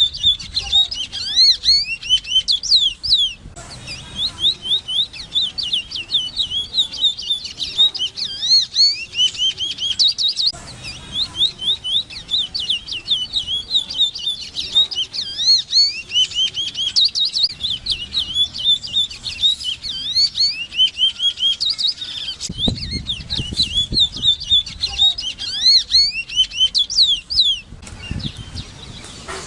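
Large-billed seed-finch (Sporophila crassirostris) singing a long, fast, almost unbroken run of high whistled notes that slide up and down. The song breaks off about two seconds before the end.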